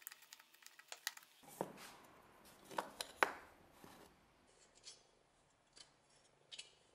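Screwdriver working out the screws that hold old wooden scales on a rusty meat-axe handle, with scrapes and sharp clicks of metal and wood being handled. The clicks are loudest in the first half and grow sparse and faint later on.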